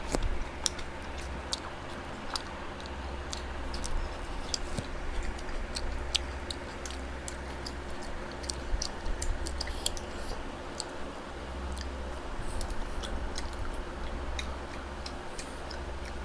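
Close-up chewing and mouth sounds of people eating chicken and rice: many small, sharp wet clicks and smacks at an irregular pace, over a steady low hum.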